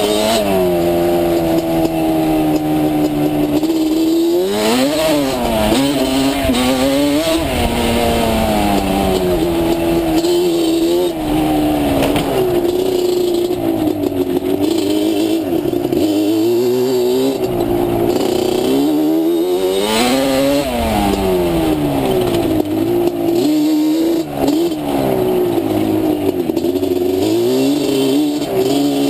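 Yamaha Banshee ATV's twin-cylinder two-stroke engine being ridden hard, its pitch rising and falling again and again as the throttle is opened and closed through the gears.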